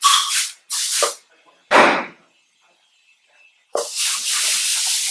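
Compressed air hissing through a tire changer's clip-on air chuck as a car tire is inflated: several short blasts in the first two seconds, then a long steady hiss from almost four seconds in.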